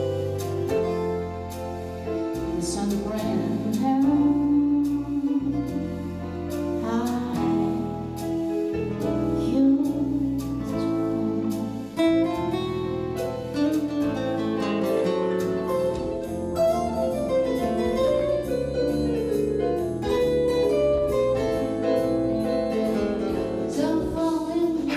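Music: a song with a singer over keyboard and guitar accompaniment, from a duo performing on stage.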